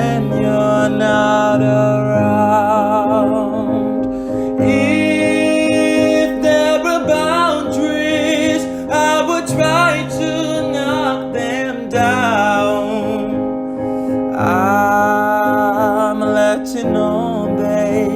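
Solo singer performing a slow ballad over piano accompaniment, holding notes with vibrato.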